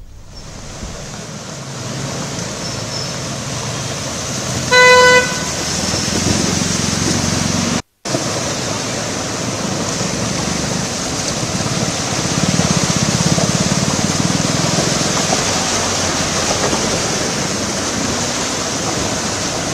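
Traffic on rain-flooded roads: a steady wash of water and vehicle noise, with a car horn sounding once, briefly, about five seconds in. The sound cuts out for a moment near eight seconds.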